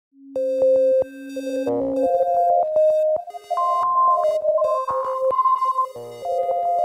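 Electronic background music: clear synthesizer notes stepping between pitches over a light ticking pulse, with a low held tone under the first two seconds.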